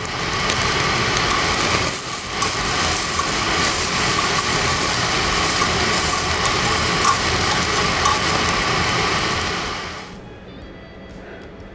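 Thick-cut wagyu misuji steaks sizzling on a hot grill grate: a steady hiss that dips briefly about two seconds in and cuts off near the end.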